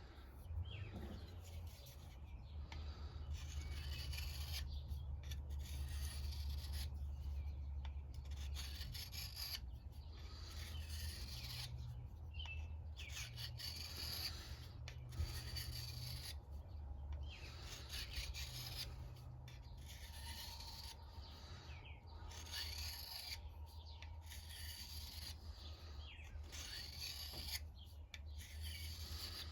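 Knife blade being sharpened: repeated rasping strokes of steel against an abrasive, roughly one a second, over a steady low hum.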